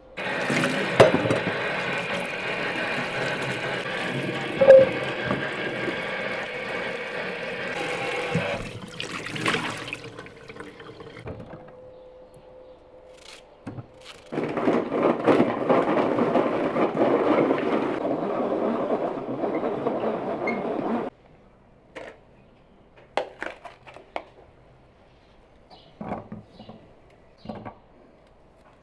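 Electric food chopper's motor running steadily for about eight seconds, stopping, then running again for about seven seconds and cutting off sharply while it chops onions. A few short sharp clicks follow near the end.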